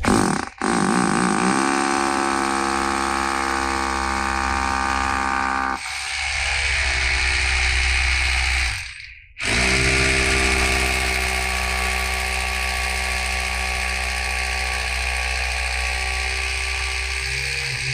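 Makita HR2470 rotary hammer drilling concrete with an 18 mm bit. The motor whine rises as it spins up, runs steadily and changes tone partway through. It stops briefly around the middle, then starts up again and runs on.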